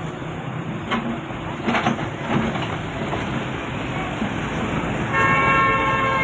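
Doosan excavator's diesel engine running steadily, with a few short knocks in the first half. Near the end a horn sounds one steady note for about two seconds.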